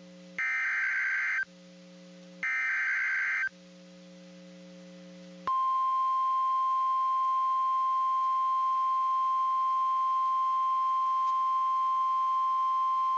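NOAA Weather Radio alert signals. The last two of three buzzing SAME header data bursts, each about a second long and a second apart, then about five and a half seconds in the single steady 1050 Hz warning alarm tone begins. A low receiver hum runs underneath.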